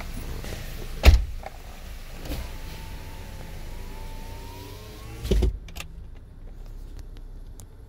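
Car door being handled: a heavy thud about a second in and another about five seconds in, after which the outside background noise cuts off, as a door is shut from inside the cabin.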